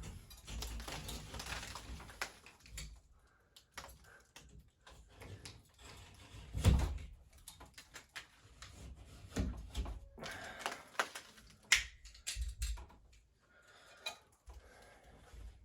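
Hand work on wet drywall: scraping and tearing with scattered knocks and thuds, the loudest thud about seven seconds in.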